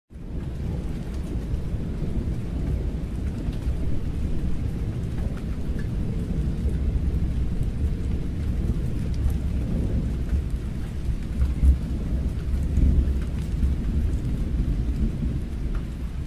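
Rain and thunder: a steady wash of rain over a deep, continuous rumble.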